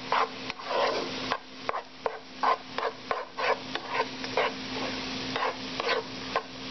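A spoon stirring and scraping sautéed mushrooms, onions and flour around a pot, in quick repeated strokes about twice a second, cooking the flour in.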